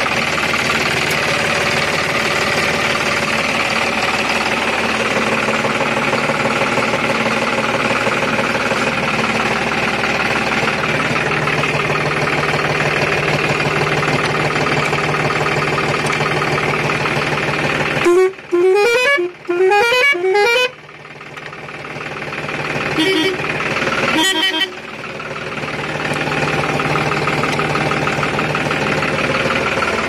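John Deere tractor's diesel engine idling steadily. About eighteen seconds in, a multi-trumpet air horn sounds a quick run of four rising notes over about three seconds, then two short blasts a few seconds later, louder than the engine.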